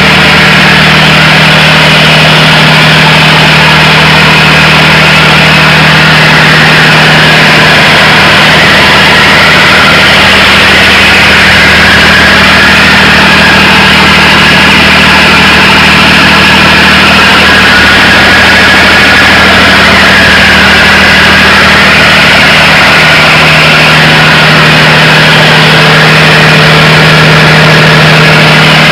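Tata 697 six-cylinder diesel engine, the Indian-built Mercedes OM 352, freshly overhauled and driving a generator, running loud and steady at constant speed.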